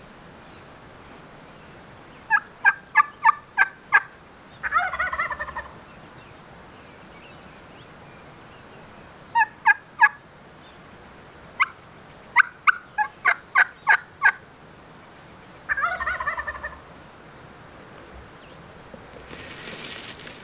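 Wild turkey calling: a run of sharp, evenly spaced hen-style yelps, then a Merriam's gobbler gobbling once in reply, about five seconds in; the pattern repeats with a longer string of yelps and a second gobble near the end.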